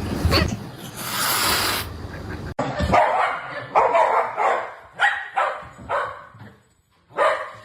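A dog barking: a string of short barks from about three seconds in.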